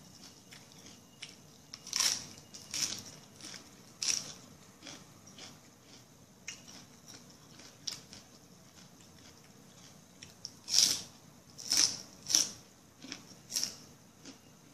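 Close-up eating sounds: a person chewing, with wet crunches and mouth clicks coming in irregular bites, a few about two seconds in and a louder run near the end.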